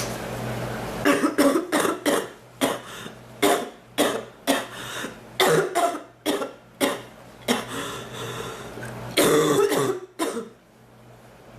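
A woman coughing in a long fit of many short coughs in quick succession. A stronger cluster of coughs comes near the end, then the coughing stops. The coughing hurts her chest and back.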